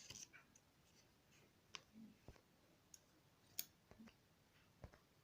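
Near silence with a few faint, scattered clicks and light rustles of a paper circle being folded in half.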